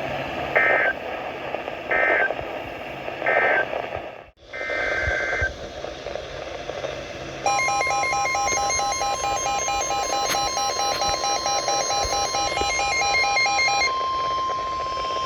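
Emergency Alert System tones over a weather radio with background static: three short data bursts about a second and a half apart, the end-of-message codes closing the warning, then after a brief dropout another short burst. From about halfway in, a steady single-pitched attention tone sounds together with a rapidly pulsing, many-pitched alert tone, which stops near the end while the steady tone continues.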